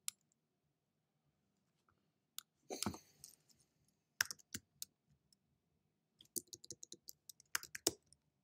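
Computer keyboard keystrokes and mouse clicks, faint and sparse at first, then a quicker run of typing near the end.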